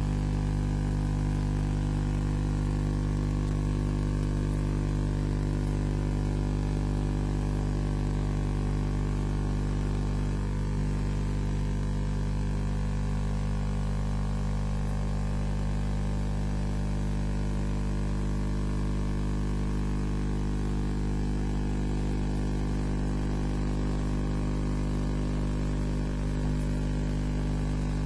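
Steady electrical hum and buzz with a hiss, unchanging throughout.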